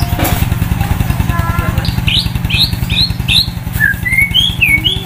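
White-rumped shama singing: four quick curved whistles about two seconds in, then a run of notes climbing in pitch near the end, over a steady pulsing engine hum like a motor idling.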